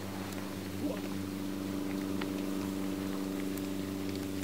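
A steady low mechanical hum with several pitched tones, like a motor running, and a few faint light ticks over it.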